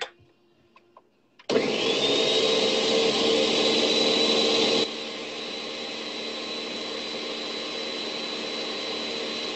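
Electric blender motor spinning up with a rising whine and running steadily, blending lumpy crepe batter smooth. About halfway through it gets noticeably quieter but keeps running.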